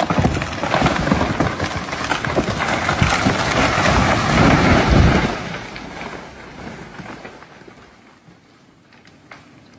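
A felled tree falling: wood splintering and branches cracking and crashing through the canopy, ending in a heavy thud on the ground about five seconds in, then the rustle of settling debris fading away.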